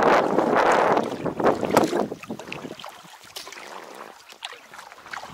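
Kayak moving across open lake water. Wind on the microphone is loud for about the first two seconds, then eases, leaving small water splashes and drips against the hull.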